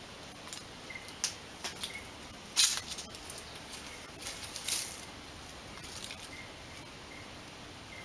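A lop-eared rabbit digging in dry soil and leaf litter: irregular bursts of scratching and rustling, the loudest about two and a half seconds in and again near five seconds.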